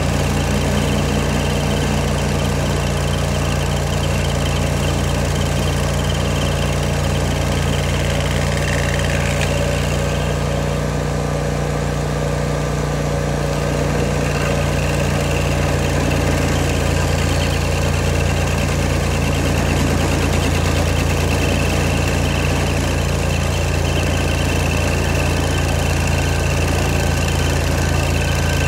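Old Vermeer stump grinder's engine running steadily at a constant speed.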